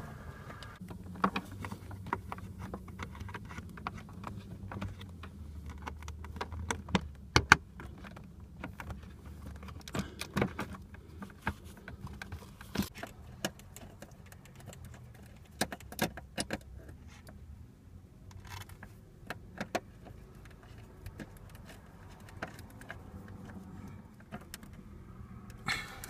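Scattered small metallic clicks, taps and rattles as a crimped 12-volt wire terminal is worked onto a fuse block's terminals by hand, with one sharper click about seven and a half seconds in.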